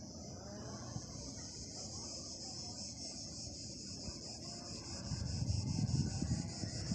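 Cicadas singing in a steady high chorus that pulses evenly several times a second. From about five seconds in, wind buffets the microphone in gusts.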